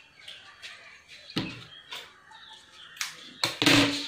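Cloth rustling and scattered light knocks as fabric is folded and handled at a sewing machine, with a louder rustling burst near the end.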